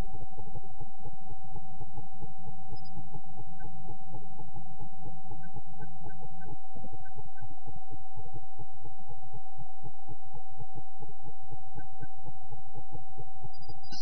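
A steady electronic tone held on one pitch over a fast, even low throbbing of about five pulses a second. A low drone under it drops out about halfway through. No owl calls stand out.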